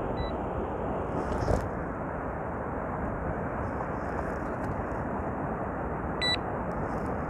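Steady rushing noise of sea waves breaking and wind, with a brief knock about a second and a half in and a short high-pitched beep near the end.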